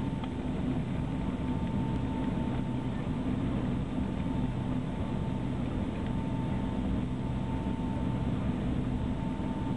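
Steady jet airliner noise heard from inside the cabin as the plane rolls on the ground after landing: a low engine rumble with a faint steady whine.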